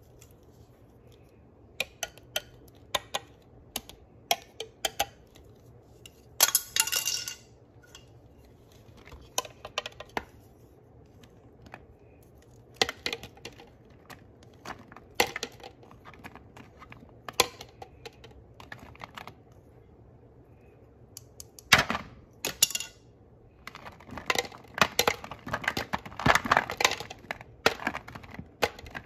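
Small plastic toy fruits clicking and clattering as they are picked from a plastic bowl and dropped into the sections of a plastic sorting-pie tray: scattered single clicks, a short rattle, and a busy run of clatter near the end.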